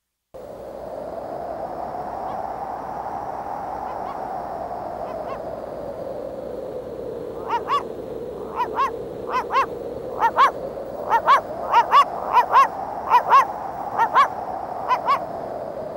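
Animated-cartoon soundtrack: a steady whooshing wind that slowly swells and eases. From about seven seconds in it is joined by about ten quick double calls, each short and honk-like with a bending pitch, which are the loudest sounds.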